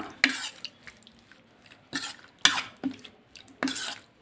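A steel spoon stirring raw prawns coated in ginger-garlic paste in a bowl: about five separate short scrapes and clicks of the spoon against the bowl.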